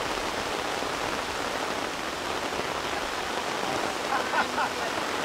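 Heavy rain falling steadily in an even hiss and patter. A brief pitched sound comes about four seconds in.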